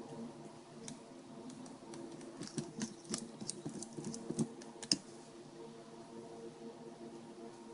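Quick light clicks and taps of small plastic and metal parts being handled and fitted during reassembly of a Garmin GPS, bunched together in the middle and stopping about five seconds in. A low steady hum sits underneath.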